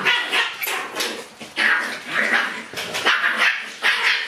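Shiba Inu puppies yipping and barking in a quick string of short, high-pitched calls as they play together.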